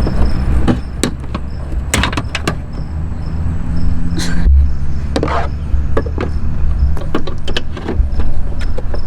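Plastic fender clips and trim on a Jeep Wrangler JL fender being squeezed and pulled free: a string of sharp clicks and knocks, with two brief scraping swishes near the middle, over a steady low rumble.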